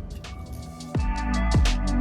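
Electronic background music with steady synth tones and a regular ticking hi-hat. About a second in, deep bass notes come in, each sliding down in pitch, and the music gets louder.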